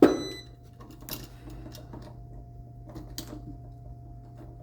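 Electrical tape being pulled off the roll and wrapped around a light switch, heard as two short rasps about a second and three seconds in. It opens with a loud, sharp knock that rings briefly.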